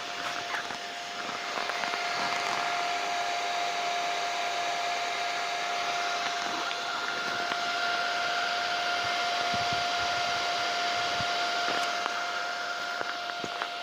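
Electric welding arc from a WERT MMA 220 welding inverter: a steady hiss over a constant whine, louder from about a second and a half in and easing slightly near the end.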